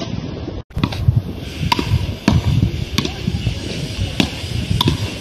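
Paddle rackets hitting a ball back and forth in a quick rally: a sharp knock every half second or so over a low rumbling background. The sound drops out briefly just under a second in.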